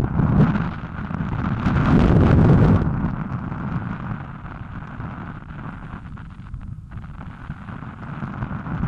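Wind buffeting the microphone of a helmet-mounted camera on a moving bicycle: low rumbling gusts swell at the start and again about two to three seconds in, then ease to a steadier rush.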